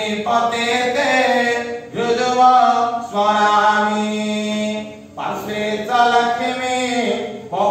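A Hindu priest chanting puja mantras in a sing-song voice. The chant comes in phrases of a second or two, with one long held note in the middle and short breaths between phrases.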